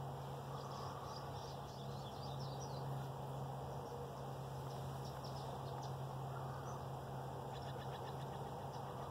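Faint chirps of small birds over a steady low hum, ending in a quick rapid series of notes near the end.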